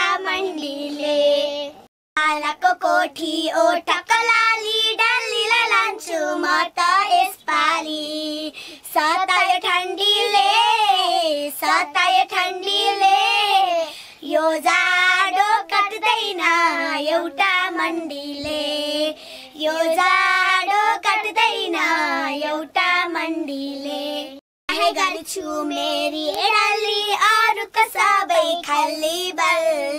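Young girls singing a song together, their high voices sliding up and down. The sound breaks off briefly twice, about two seconds in and near the end.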